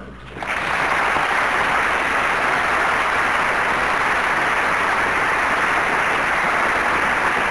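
Large audience applauding: the clapping swells up within the first half second and then holds steady.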